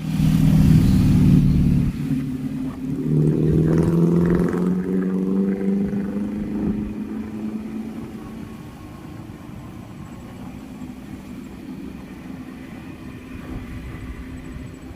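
A motor vehicle's engine running close by, rising in pitch as it accelerates a few seconds in, then fading away as it passes.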